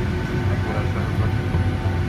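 Boeing 757-300 jet engines running at low thrust while taxiing, heard inside the cabin: a steady deep rumble with a constant whine of several fixed tones.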